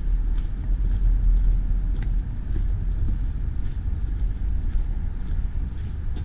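Low rumble of wind buffeting the camera microphone, with faint footsteps on a gravelly lane about every two-thirds of a second.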